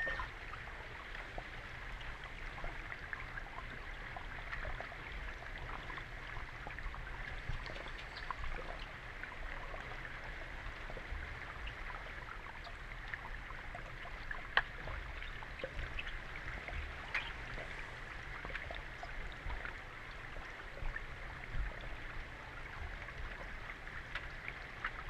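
Underwater ambience in a swimming pool, heard through an underwater camera: a steady hiss with many scattered sharp clicks and knocks, one louder click about halfway through, over a low rumble.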